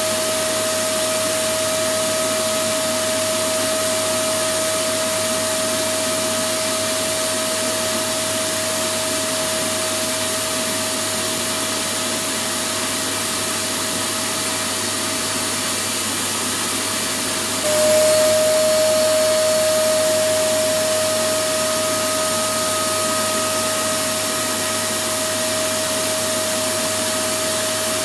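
Electric vacuum cleaner running steadily: a continuous rushing hiss with a steady motor whine. About two-thirds of the way through it jumps a little louder and the whine drops slightly in pitch, then settles back.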